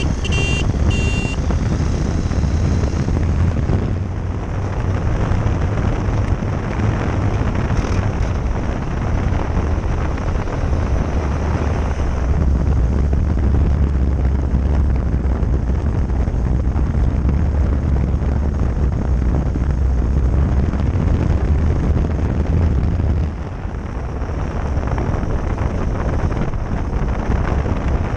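Wind rushing over the microphone of an action camera mounted low on a moving motorcycle, mixed with the bike's engine and tyre noise as a steady rumble. It eases briefly about 23 seconds in. A few short high tones sound at the very start.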